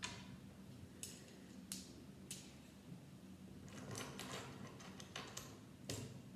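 Small plastic Lego bricks clicking and tapping against each other as they are handled and pressed together, in scattered single clicks and a quicker run of clicks about four to five and a half seconds in, over a low steady hum.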